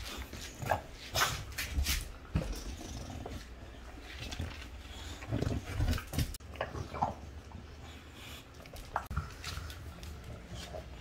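English bulldog making breathy grunting noises as it noses and chases a green rubber treat toy across a tile floor, with scattered knocks and clicks as the toy and the dog's paws hit the floor.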